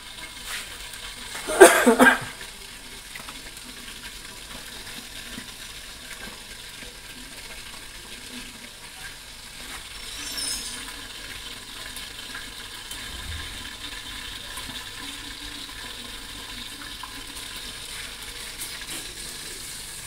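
Fish frying in hot oil, a steady sizzle throughout, with a loud brief clatter about two seconds in.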